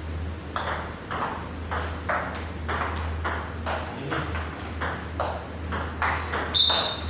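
Table tennis rally: the ball clicks off the bats and bounces on the table in a steady back-and-forth rhythm, about two hits a second. A brief high squeak comes near the end, over a low steady hum.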